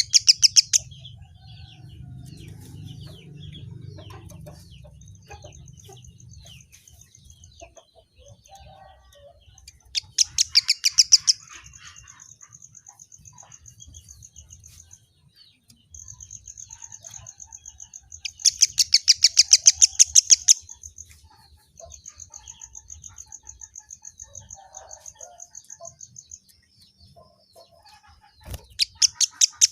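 Kemade (white-headed munia) singing: loud bursts of rapid clicking notes, each lasting a second or two, alternate with long, thin, high whistles held steady for several seconds.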